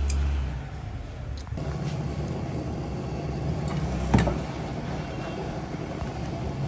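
A steady low rumble like an engine running nearby, with one sharp knock about four seconds in, chopsticks striking the stainless steel mixing bowl.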